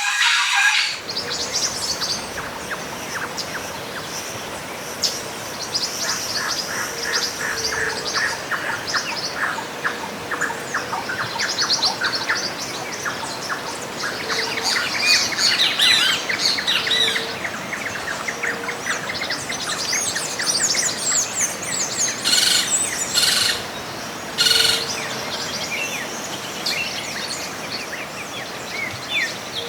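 Several birds chirping and calling in an outdoor chorus over a steady background hiss, with a low short call repeating every second or two.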